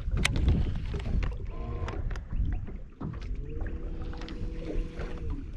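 Water slapping against a small boat's hull, with scattered clicks and knocks as a spinnerbait is cast and wound back on a baitcasting reel. A steady whine runs for about two seconds in the second half.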